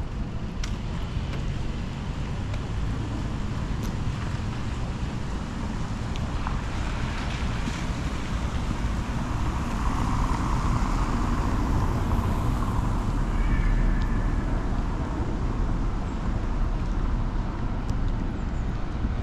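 City street ambience: a steady wash of distant traffic noise with a low rumble, growing louder from about ten seconds in as vehicles pass.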